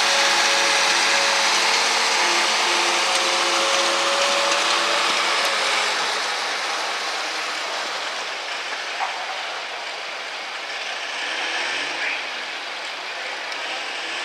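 Turbocharged International farm tractor's diesel engine running steadily at the start line while hooked to the pulling sled, a steady hum over a wide hiss; the sound eases a little after about six seconds.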